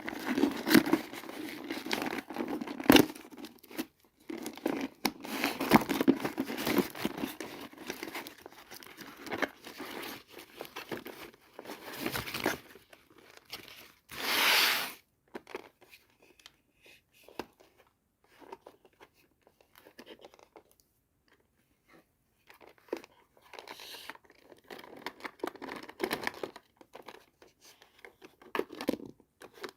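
Doll-set packaging handled and opened by hand: dense crinkling and crackling, with one louder tearing rip about halfway through. Then a quieter stretch of a few light taps before the crinkling starts again near the end.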